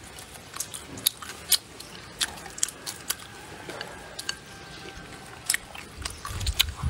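Close-up chewing and mouth smacking as a mouthful of rice and meat is eaten, with scattered short sharp clicks. A low rumble comes in near the end.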